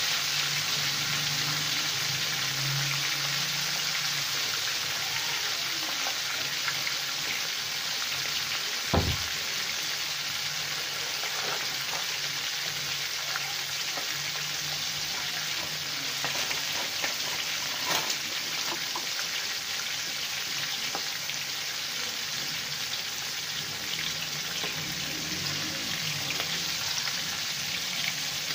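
Marinated chicken piece frying in hot oil in a wok: a steady sizzle, with one sharp knock about nine seconds in and a few faint clicks around eighteen seconds.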